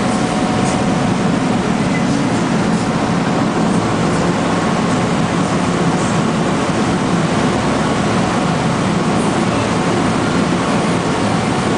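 Motor launch under way: its engine drones steadily, with water rushing along the hull.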